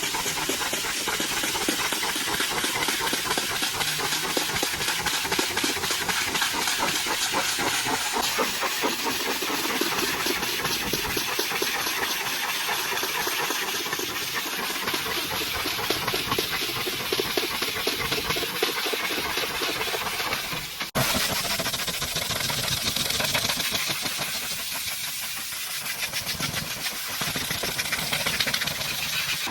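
High-pressure washer jet blasting water against a truck's mud-caked body: a steady, loud hiss of spray. It cuts out abruptly for a moment about two-thirds of the way through, then carries on.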